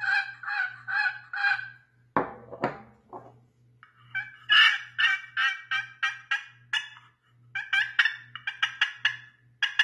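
Turkey pot call played with a walnut striker with a flatter tip, the striker scratching the call's surface in a run of rasping yelp notes, about four a second. Two knocks about two seconds in, then more yelps and sharp, quicker clucking notes toward the end.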